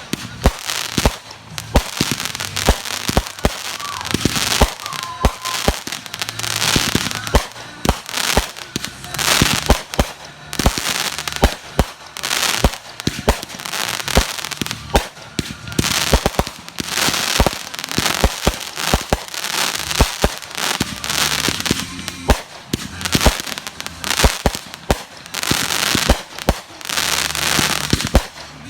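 Fireworks going off: a rapid, irregular series of sharp bangs, with repeated crackling bursts.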